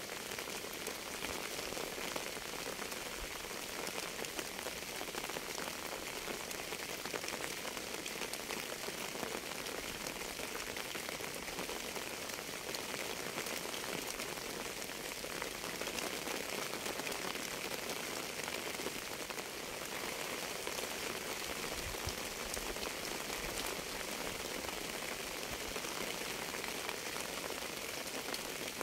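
Steady rain falling on a surface: an even hiss dotted with many small, closely packed drop ticks, unchanging throughout.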